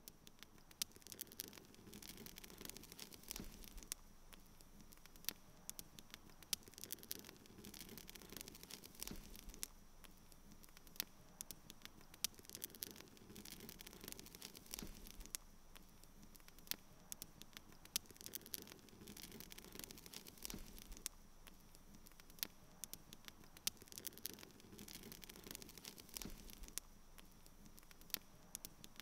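Faint irregular crackling: scattered sharp clicks over a low hiss, with a thin steady high whine.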